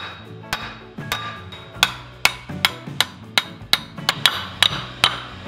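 Sledgehammer repeatedly striking the end of a Lexus IS300 rear axle shaft in its hub, steel on steel, to drive the axle out of the hub. About fourteen blows at two to three a second, each with a short ring.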